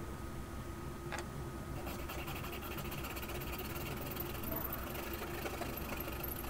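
A hand saw with a wooden handle cutting through a small piece of wood trim clamped in a bench vise, in rapid back-and-forth strokes that start about two seconds in. A single knock about a second in comes before the sawing.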